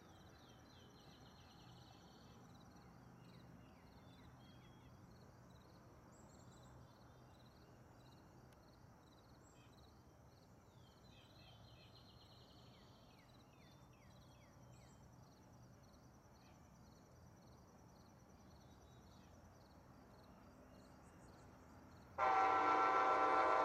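Insects buzzing steadily and birds chirping in quiet open air. About 22 seconds in, an approaching Amtrak locomotive's horn starts blowing, loud and sudden, a chord of several steady tones held without a break.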